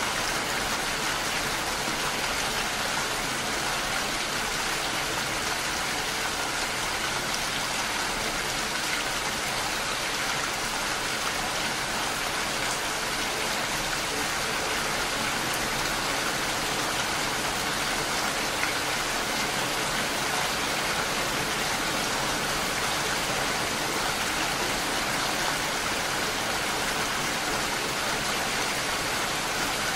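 Steady, even rain falling, a continuous hiss with no let-up or change.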